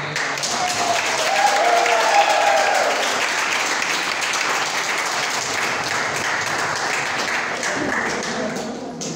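A roomful of students applauding, steady clapping with a voice or cheer briefly rising over it in the first few seconds.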